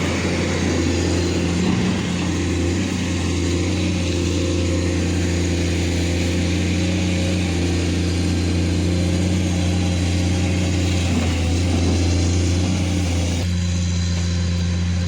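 Heavy earthmoving machine's diesel engine running steadily at a constant low pitch, with a slight change in tone about 13 seconds in.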